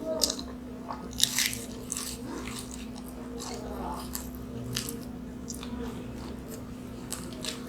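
Mughlai paratha, a fried flatbread stuffed with egg, being bitten and chewed close to the microphone: scattered crunchy bites and chewing over a steady low hum.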